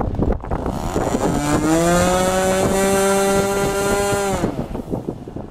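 Magnum XLS-61A two-stroke glow engine on a model airplane, throttled up in quick steps about a second in. It holds a steady high-pitched full-throttle run for about three seconds, then is throttled back down near the end: a run-up while the engine is being tuned. Wind gusts on the microphone throughout.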